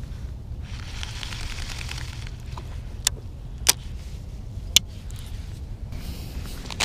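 Sharp clicks from a baitcasting rod and reel being handled and cast, four in all, spread over a few seconds, with a soft hiss just before them. A steady low rumble runs underneath.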